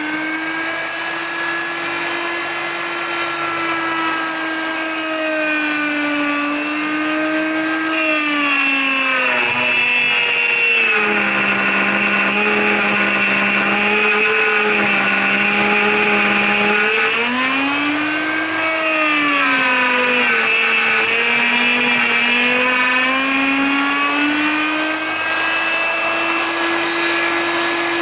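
Handheld plunge router motor running at full speed with a high whine. The pitch drops as the bit takes load cutting into the timber and holds lower for several seconds. It then rises, dips once more, and climbs back to full speed near the end.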